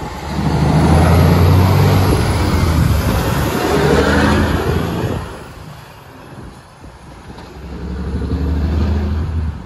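Diesel engine of a semi tractor pulling a scrap trailer, accelerating as it passes close by; its pitch rises about three to four seconds in, then the sound drops away about five seconds in. The engine pulls again, less loudly, near the end as the truck moves off.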